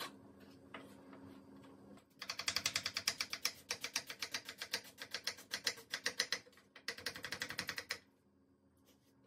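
A chef's knife thinly slicing a red onion on a white plastic cutting board: rapid, even knife taps against the board, with a short break partway through, stopping about a second before the end. Before the slicing starts, a few single taps of the knife cutting green chilies.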